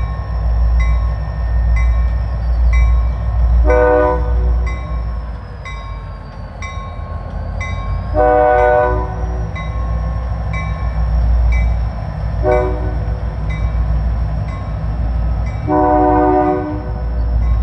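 Diesel locomotive horn blowing the grade-crossing signal, long, long, short, long, over the low, steady running of the diesel engines as the locomotives move slowly. A bell rings about twice a second throughout.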